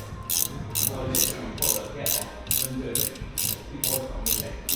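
Hand ratchet wrench clicking in quick repeated strokes, about two a second, as loosened screws are backed out of a Harley-Davidson Sportster engine cover.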